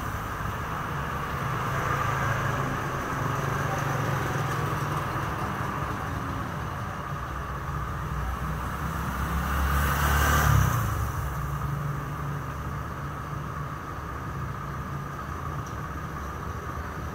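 Steady background motor rumble, with a vehicle passing by about ten seconds in.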